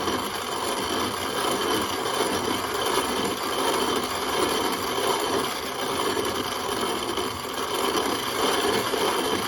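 Antique hand-cranked CS Bell No. 2 grain mill grinding milo: a continuous, gritty crunching and rattling as the grain is cracked between the burrs, steady throughout.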